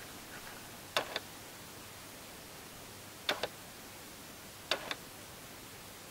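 Three quick double clicks, a sharp click followed by a softer one, from a carved wooden lid being handled and turned in the hand.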